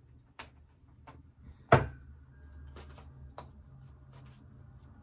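Tarot cards being handled on a table: a few light clicks and one sharp knock about two seconds in, then a low steady hum.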